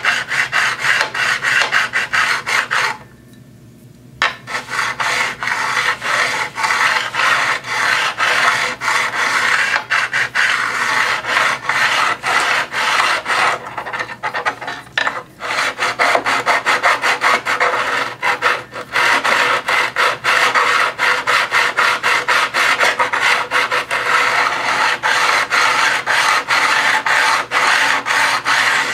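Diamond paddle hone scraping back and forth along the steel blade of a guillotine paper cutter in quick, even strokes, sharpening the edge by hand. The strokes stop for about a second near the start and pause briefly about halfway through.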